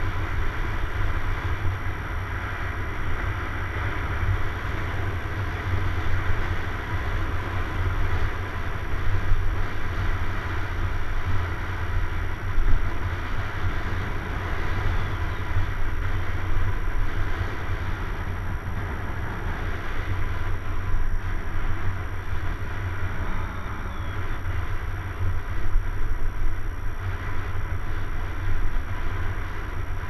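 Wind buffeting the microphone of a rider-mounted action camera as a mountain bike rolls along a paved road, a steady rushing rumble that swells and dips.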